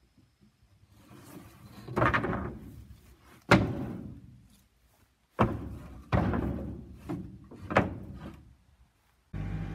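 Loose wooden boards being dropped and set down on a wooden plank deck: five or six separate hollow knocks, the loudest about three and a half seconds in. Near the end a tractor engine starts running steadily, cutting in suddenly.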